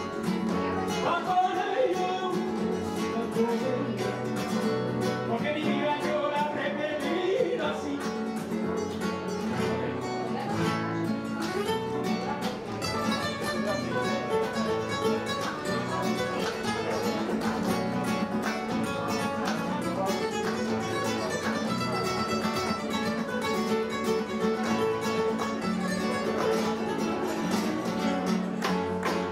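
Live rumba flamenco played on two nylon-string Spanish guitars, with fast rhythmic strumming under a picked melody and hand-clapping (palmas) keeping time.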